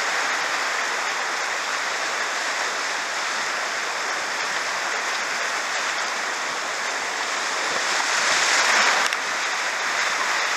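Whitewater rapid rushing and churning around a kayak, a steady loud hiss of moving water that swells about eight seconds in and drops suddenly a second later.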